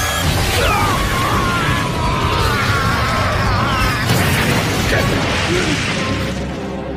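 Anime battle sound effects: a loud energy-blast explosion and rumbling impacts with a wavering high tone over them, under background music. It eases off near the end.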